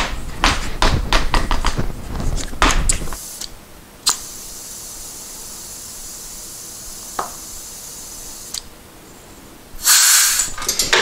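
Motorcycle wheel with a newly mounted tyre bounced repeatedly on the floor, a quick run of thuds, to seat the tyre bead on the rim. Then a steady hiss runs for a few seconds, and a brief loud rustle comes near the end.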